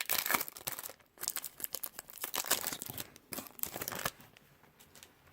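Foil wrapper of a Bowman Chrome baseball card pack crinkling and tearing as the pack is ripped open by hand, dying down after about four seconds.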